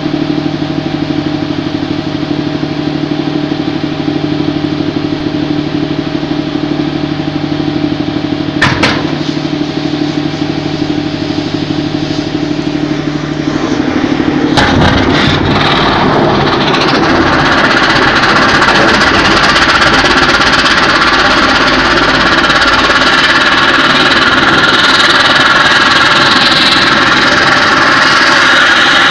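An engine runs steadily with a hum, and there is a short knock about nine seconds in. About halfway through, an S-300 surface-to-air missile's rocket motor ignites with a sudden loud blast. It then keeps burning loudly and steadily on the launcher, with the missile not leaving: a failed launch.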